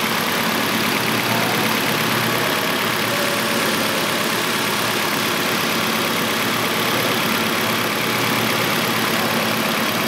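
2006 Nissan Altima's 2.5-litre four-cylinder engine idling steadily with all four cylinders firing, now that a replacement ignition coil is on cylinder four.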